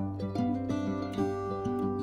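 Background music played on a plucked string instrument, like an acoustic guitar, with notes picked one after another.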